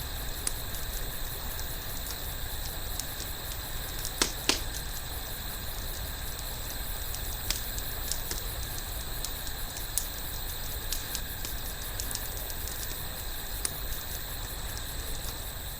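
Wood fire burning in a fire pit, crackling steadily with scattered small pops and a few louder snaps.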